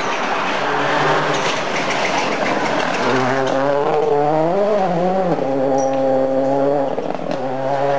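Rally car at full speed on a special stage, its engine rising and falling in pitch with throttle and gear changes as it brakes into and powers out of a corner, over tyre and road noise.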